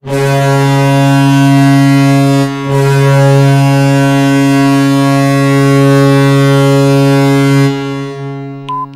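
NHL arena goal horn blowing: a deep, loud, steady horn blast, a very short break about two and a half seconds in, then a long second blast that fades out near the end. A short beep sounds just before the end.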